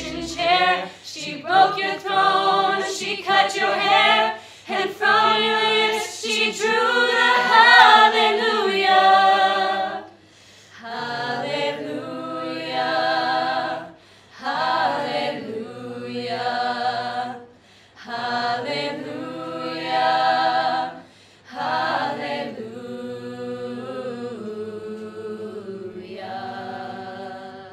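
A small group of young singers singing a song a cappella, with no instruments. It goes in phrases with short breaks between them, louder over the first ten seconds and softer toward the end.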